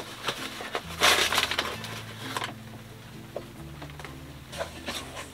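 Paper flour bag rustling as flour is poured into a stainless steel mixing bowl, with a loud hissing rustle about a second in. After it come small scrapes and rubs of a hand mixing dough in the bowl.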